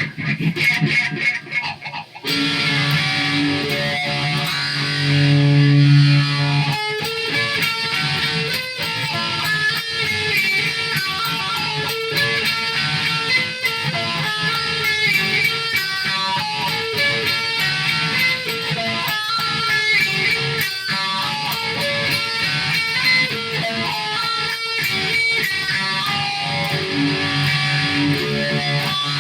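Guitar playing: held low notes from about two seconds in, then quick runs of picked notes.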